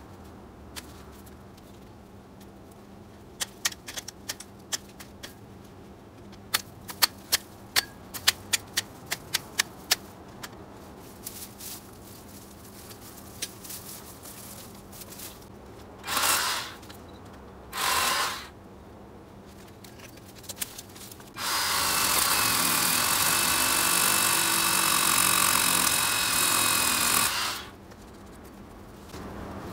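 A cordless power tool cutting into Banksia rose stems: two short bursts, then a steady whining run of about six seconds that cuts off suddenly. Before it comes a quick series of sharp clicks.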